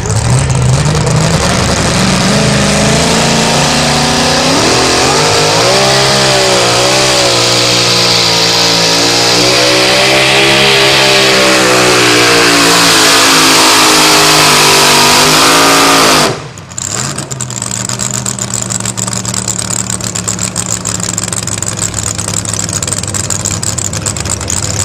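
Supercharged two-wheel-drive pulling truck's engine revving up and running at high revs, its pitch wavering as it drags the sled down the track. About two-thirds of the way in, the engine cuts off suddenly at the end of the pull, then runs on at a low idle.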